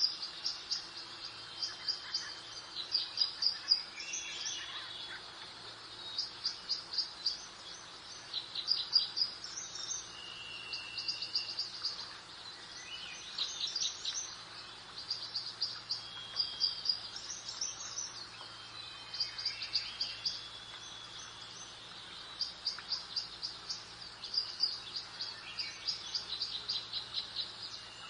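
Songbirds singing, with short rapid high-pitched trills and chirps repeated every second or two, over a faint steady background hiss.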